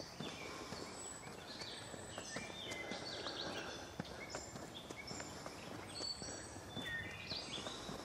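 Several songbirds singing at once, a steady chorus of short high chirps, whistles and trills overlapping one another, with faint footsteps of someone walking.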